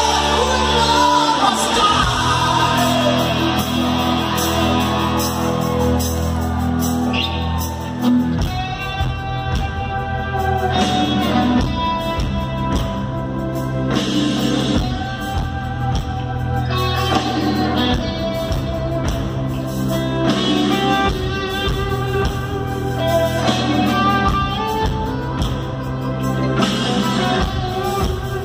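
Live rock music heard from the crowd through an arena PA: an electric guitar solo over sustained keyboard backing. A denser, rhythmic accompaniment sets in about eight seconds in.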